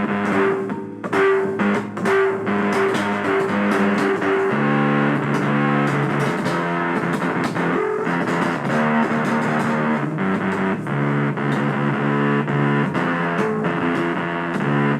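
Distorted electric guitar music, with sustained chords that change every half second or so and a lower part coming in about four and a half seconds in.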